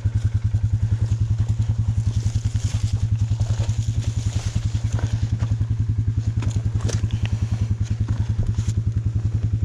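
Off-road vehicle engine idling with a steady, rapid low thump, with a few light clicks and scuffs on top.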